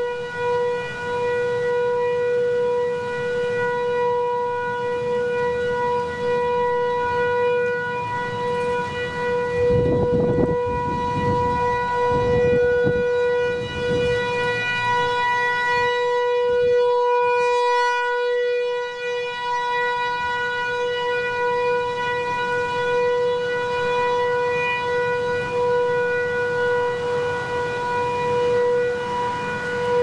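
Model 508 rotating outdoor warning siren sounding its steady wail test signal on one held pitch, growing louder and fainter as the rotating head sweeps past. Strong wind gusts rumble on the microphone about a third of the way in.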